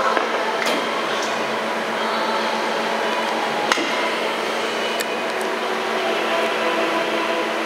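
Doosan (Daewoo) Puma 250LMB CNC lathe running: a steady mechanical hum and whine made of several fixed tones. A few sharp clicks sound over it, the loudest about four seconds in.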